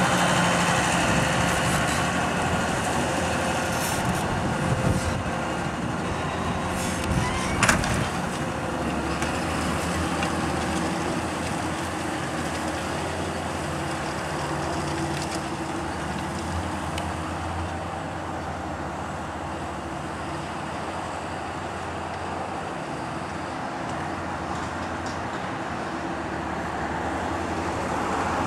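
Large John Deere tractor engine running steadily under load while pulling a reversible plough, with a few sharp clanks in the first eight seconds.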